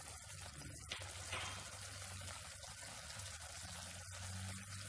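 Chopped-tomato sauce simmering in a frying pan: a steady low bubbling hiss, with a low steady hum underneath and a single click about a second in.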